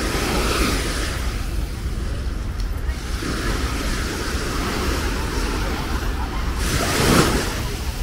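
Small waves washing up onto a sandy beach and drawing back, in several swells with the loudest about seven seconds in, over a steady low rumble of wind on the microphone.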